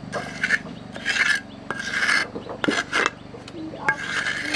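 Repeated scraping strokes, about five of them, each around half a second long with short pauses between.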